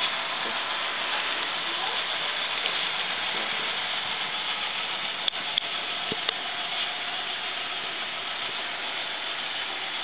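HO-scale Intermountain ES44AC model locomotive's DCC sound decoder playing diesel engine sound through its small onboard speaker: a steady hissy running sound with faint held tones. A few light clicks come about halfway through.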